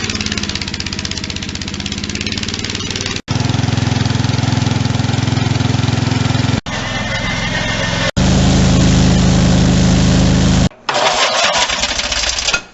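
Motor-driven machinery running steadily with a low, even hum, in several short clips cut together; the sound changes abruptly at four cuts, and the last clip is brighter and higher.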